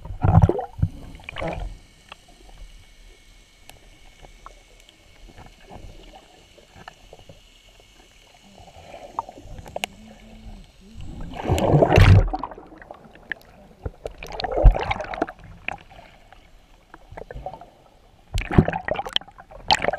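Water splashing and sloshing around a camera held at and just below the surface while snorkeling, in several bursts a few seconds apart, with muffled underwater stretches in between.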